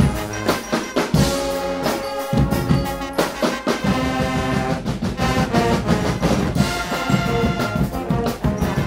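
Guggenmusik carnival band playing: trumpets, trombones and sousaphones over a beat of drums and cymbals.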